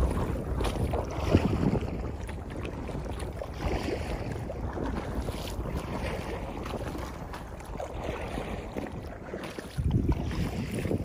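Wind buffeting the microphone over water lapping and splashing around a kayak, with gusts strongest about a second in and again near the end.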